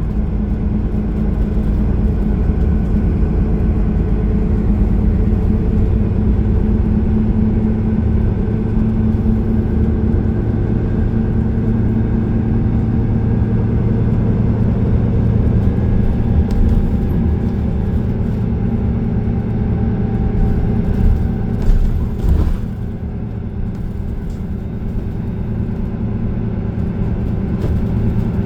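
Transit bus engine running with steady road rumble, heard from inside the bus. A short rattle about three-quarters of the way through, after which the noise drops a little.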